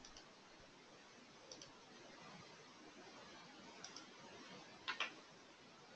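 Computer mouse clicking against near silence: a few faint clicks, the loudest a quick double click about five seconds in.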